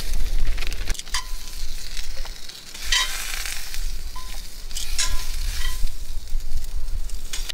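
Edamame sizzling in oil in a frying pan on a gas camp stove, with metal tongs clinking against the pan and a steel bowl several times as the pods are lifted out, each clink ringing briefly.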